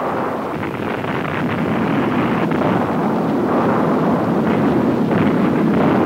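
Dynamite blast in rock, heard as a sustained rumbling roar with a few sharp crackles, growing slightly louder toward the end.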